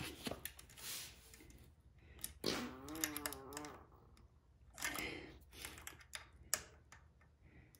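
Faint scattered clicks and light metal taps of a hex key being fitted into the mounting bolts of a hydraulic disc brake caliper, while the caliper is squeezed against the disc to centre it. A short wavering tone comes about three seconds in.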